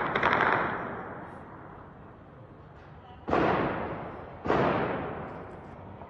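Bursts of gunfire: one burst fading out within the first second, then two more sudden bursts about three and a half and four and a half seconds in, each dying away slowly.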